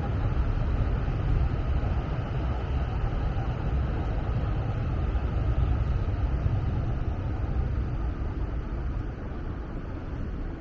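Steady city street ambience: a low rumble of traffic under a general hiss of street noise, easing a little near the end.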